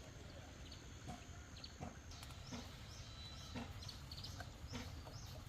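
Faint rural background of chickens clucking and small birds chirping, with scattered short ticks or taps.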